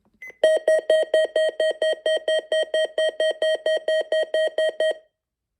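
Midland WR300 weather alert radio sounding its siren-level adjustment tone: a loud, rapidly pulsed electronic alarm of about five beeps a second that stops abruptly after about four and a half seconds, after a short high key beep. It is the tone that older versions of this radio played for the required weekly test alert.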